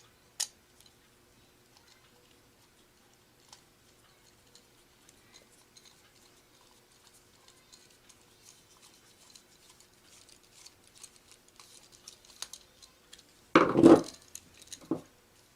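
Metal hand crimping tool and ring terminal being handled: scattered small clicks and ticks, growing busier, then a loud short crunching burst near the end as the crimp is squeezed or the joint is worked.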